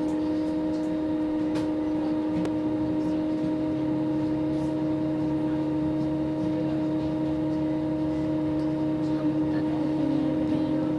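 Steady hum and low rumble of a bus heard from inside the passenger cabin, with a few constant humming tones that hold the same pitch throughout.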